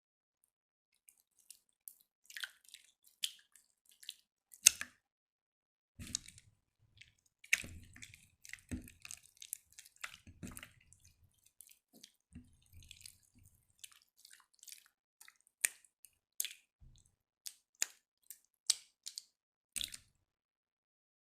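Jiggly slime handled by hand, giving irregular wet, sticky clicks and small pops, with a few soft low squelches in the middle.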